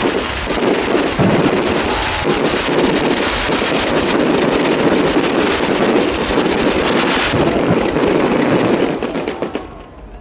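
Fireworks going off in a dense, continuous barrage of bursts and crackling that dies away about nine seconds in.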